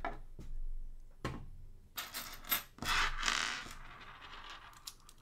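Small metal rack screws and cage nuts clicking and scraping as a hand pushes them around on a wooden desktop. A few separate clicks come first, then a busier flurry about two seconds in.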